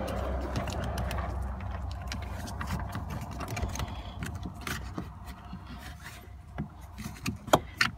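Hand working at the red plastic positive-terminal cover on a Toyota Prius 12-volt battery, giving scattered small plastic clicks and scrapes, with a few sharper clicks near the end. A low rumble fades over the first few seconds.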